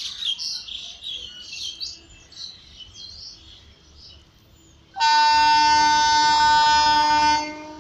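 Birds chirping, then about five seconds in a train's locomotive horn sounds one long, steady blast of about two and a half seconds before trailing off.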